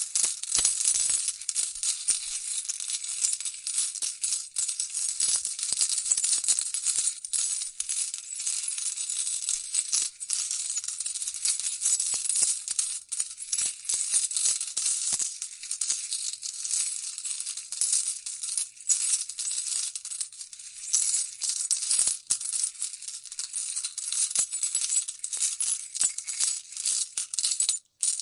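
Coins falling and clinking together in a dense, continuous stream of small metallic clinks, cutting off abruptly near the end.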